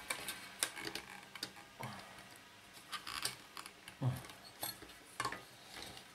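Scattered light clicks and clinks of the metal wire guard and plastic parts of a 1970s AEPI desk fan being handled and pried at during disassembly, with a few soft knocks.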